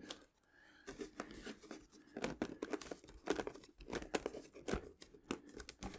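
Foam wing of an RC model airplane being pushed snugly into place on its foam fuselage: a string of small creaks and crackles of foam rubbing against foam.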